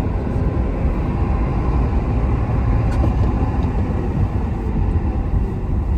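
Ford truck driving, heard from inside the cab: a steady low rumble of engine and road noise.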